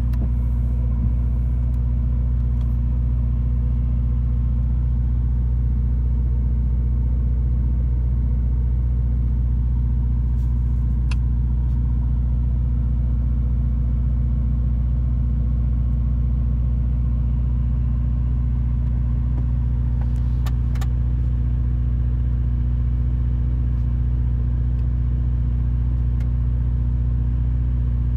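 Ferrari SF90 Stradale's 4.0-litre twin-turbo V8 idling steadily, a low, even rumble with no revving.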